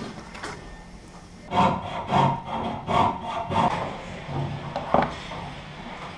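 Hand tool rasping against metal in a run of back-and-forth strokes, about one and a half a second, followed by a single sharper stroke near the end.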